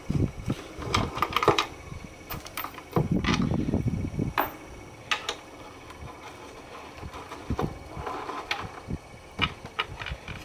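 Clicks and knocks of a 10 mm socket driver undoing the bolts on an emergency light's casing, and of the cover being handled. A denser run of rattling comes about three seconds in.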